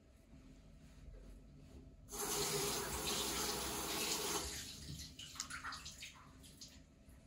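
Bathroom tap water running into a ceramic vessel sink, starting suddenly about two seconds in. After about two seconds it eases off into scattered splashes as hands are washed under the stream.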